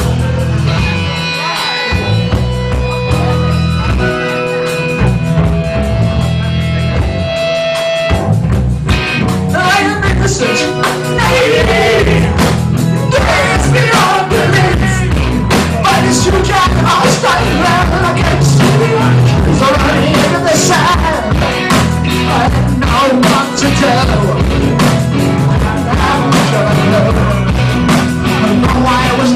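Live rock band playing loudly: held guitar and bass notes for the first eight seconds or so, then the drums and full band come in with singing over them.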